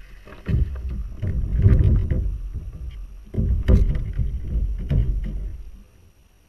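Water splashing beside a kayak as a caught fish is let go, then low rumbling and a few knocks from the angler moving about in the kayak.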